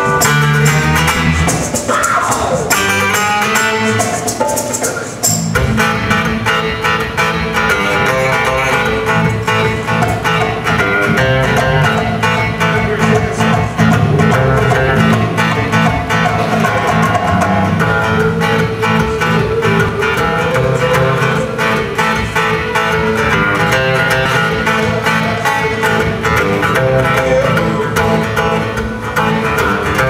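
Rock band playing live: guitars, bass and drums. The playing shifts to a fuller, steady section about five seconds in.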